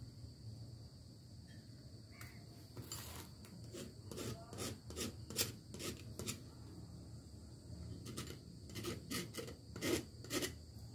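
A run of short scrapes, rubs and clicks from hands handling things on a cloth-covered work surface, loudest about five seconds in and again near the end, over a low steady hum.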